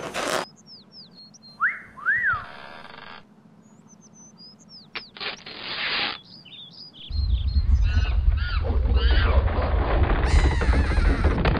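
Soundtrack of a hand-drawn cartoon animation: many short bird-like chirps and a couple of rising-and-falling whistles among brief noisy sound effects, then from about seven seconds a loud, dense rumble with high sweeping sounds over it that lasts several seconds.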